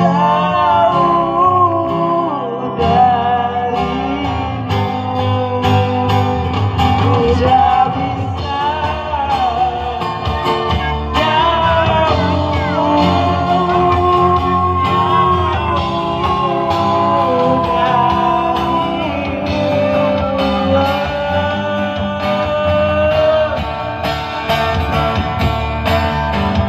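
Live band playing a song with a woman singing lead into a microphone over bass guitar and guitar accompaniment.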